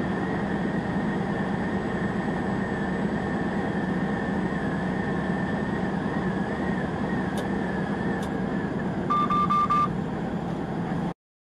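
Steady tyre and engine drone inside a car cruising at highway speed, with a faint wavering whistle. About nine seconds in comes a quick run of four or five short electronic beeps. The sound cuts off to silence just before the end.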